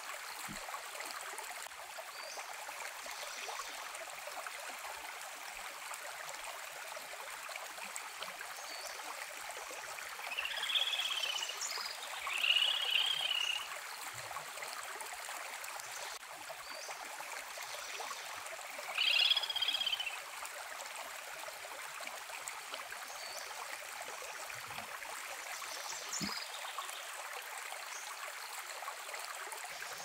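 Steady rushing of stream water, with three short, high chirping calls in the middle: two close together and one a few seconds later.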